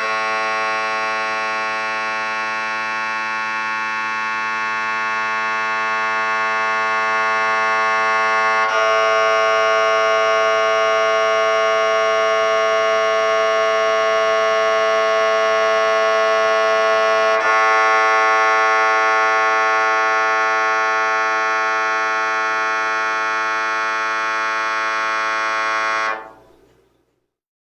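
MRI scanner's gradient coils buzzing through a scan sequence: a loud, steady buzz of many pitches at once, with brief shifts about nine and eighteen seconds in, cutting off suddenly near the end.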